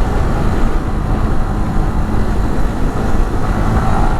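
Yamaha R15 V3's single-cylinder 155 cc engine running steadily while the motorcycle is ridden, mixed with heavy rushing noise on the microphone.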